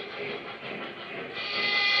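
Steam whistle from a model locomotive's sound system cutting off, then sounding again about one and a half seconds later, with a fainter hiss in the gap.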